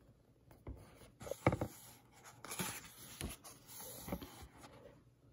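Book pages turning and a hand brushing across the paper to flatten the new page: paper rustling and rubbing, with a few soft knocks.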